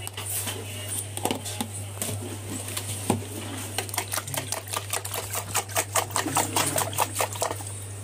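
Metal wire whisk beating an egg mixture in a bowl. The whisk clicks against the bowl in rapid, even strokes of about five or six a second, which start about halfway through and grow louder.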